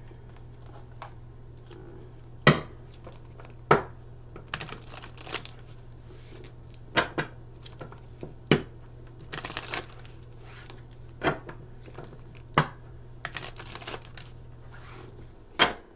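A deck of tarot cards being shuffled by hand, with short stretches of rustling card noise and a handful of sharp taps as the cards and deck are knocked against the table. A low steady hum runs underneath and stops near the end.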